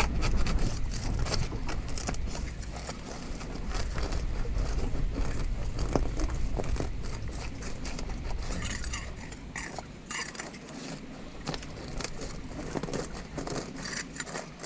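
Gooseneck barnacle shells clicking and scraping against rock as a gloved hand pries them out of a crevice: many small, irregular clicks. A low rumble sits under the first two-thirds and fades about ten seconds in.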